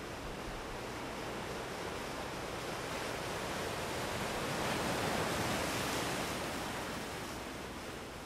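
Ocean waves washing onto the beach: a steady hiss of surf that swells to a peak about five seconds in and then eases off.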